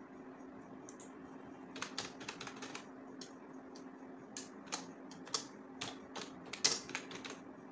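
Typing on a computer keyboard: irregular key clicks in short runs, starting about two seconds in, over a steady low hum.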